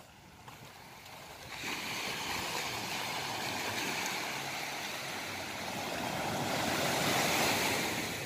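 Small sea waves washing onto a sandy shore: a steady hiss of surf that grows louder about a second and a half in, swells again near the end, then fades.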